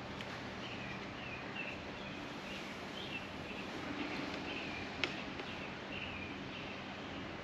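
Faint, repeated bird chirps over a steady background hum, with one sharp click about five seconds in.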